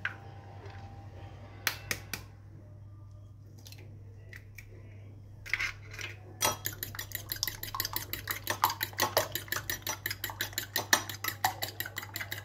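A metal fork beating eggs in a small bowl, the tines clicking rapidly and evenly against the bowl. The beating starts about six seconds in, after a few scattered taps. A steady low hum runs underneath.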